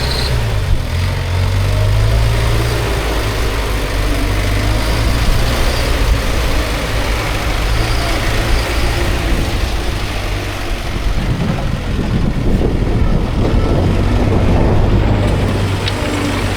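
CASE 770EX backhoe loader's diesel engine running steadily with a deep hum while the machine mixes sand and brick chips; the sound grows busier about eleven seconds in.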